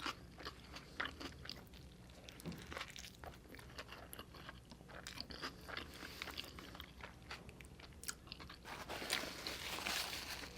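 A person chewing a mouthful of burrito, quietly, with many small crunches and wet mouth clicks. A denser rustling noise comes in near the end.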